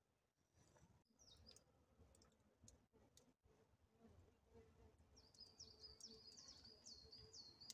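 Faint birdsong: a small songbird repeating short, downward-slurred high chirps, about three a second, through the second half. A few faint clicks come earlier.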